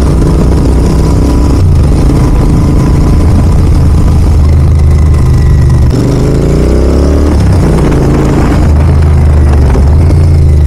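Royal Enfield Continental GT 650's 648 cc parallel-twin engine running through an aftermarket Red Rooster exhaust while riding, its note shifting with the throttle about a second and a half in and rising as it accelerates about six seconds in.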